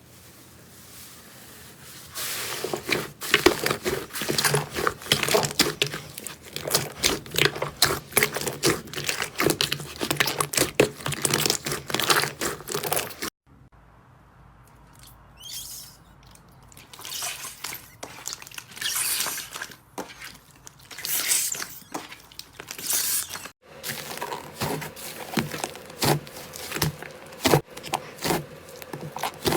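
Slime being squished and worked by hand close to the microphone, giving dense, rapid wet clicks and crackles. The sound cuts off sharply about 13 seconds in, returns quieter and sparser, then after another short break about 23 seconds in goes back to steady crackling.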